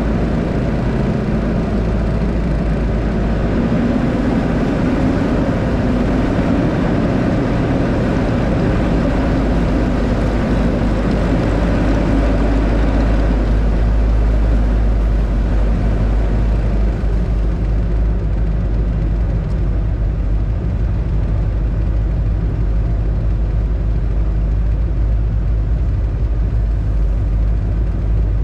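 Off-road vehicle engine running steadily under load while driving, a continuous low drone with tyres on packed snow.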